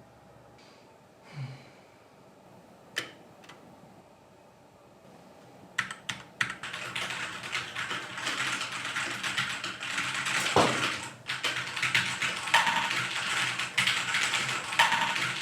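Quiet for about six seconds apart from a couple of single clicks, then fast, continuous typing on a Keychron mechanical keyboard, the keystrokes growing louder. A brief falling tone sounds partway through the typing.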